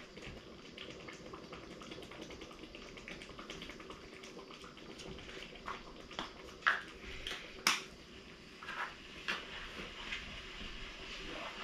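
Pot of tomato sauce simmering and spitting, with a scattered handful of sharp pops in the second half over a faint steady background.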